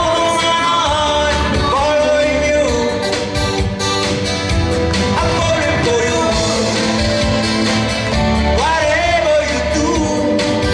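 A woman singing a pop song into a microphone, backed by a live band of electric guitar, acoustic guitar and drums.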